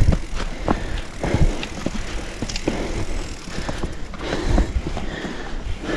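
Mountain bike riding down a rough trail: tyres rolling over rocks and gravel with irregular knocks, rattles and low thumps from the bike as it hits bumps.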